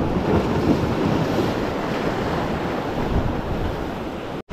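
Ocean surf washing and breaking against jetty boulders, a steady rush, with wind buffeting the microphone. The sound cuts out briefly just before the end.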